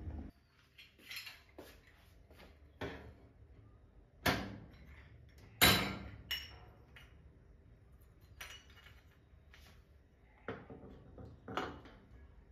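Objects being handled: a scattered run of light knocks and clinks, with two sharper knocks about four and five and a half seconds in.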